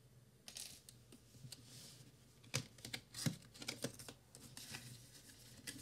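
Faint scattered clicks, taps and scrapes of hands handling a cardboard product box as its seal is cut and it is opened, with a cluster of sharper clicks around the middle.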